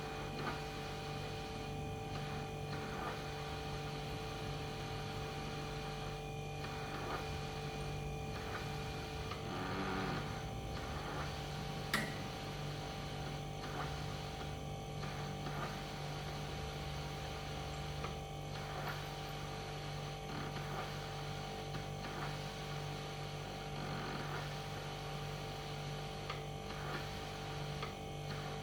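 Steady electrical appliance hum with a constant low drone and a few steady higher tones. A faint high whine stops about nine seconds in, and a single sharp click comes about twelve seconds in.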